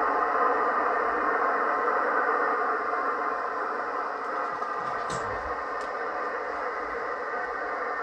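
Yaesu FT-710 transceiver's receiver hissing with band noise in SSB, no clear signal heard. The hiss eases a little a few seconds in as the digital noise reduction is set to level 5, and a couple of soft knocks come about five seconds in.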